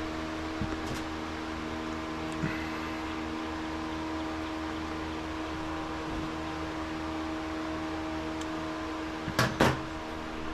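Steady machine hum like a running fan, with several fixed tones, and two sharp clicks close together about a second before the end.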